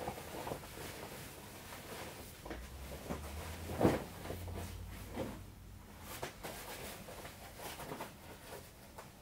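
Fabric rustling and soft knocks of a person changing into a pair of denim shorts, with one louder thump about four seconds in.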